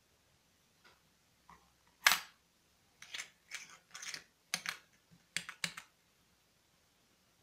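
Coins set down into a cardboard coin bank's drawer tray. One sharp click comes about two seconds in, then a quick run of about eight light clicks as the coins land on the cardboard and on each other.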